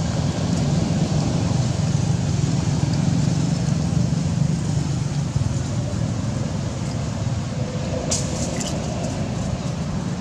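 A steady low rumble of motor noise, with a brief cluster of sharp clicks about eight seconds in.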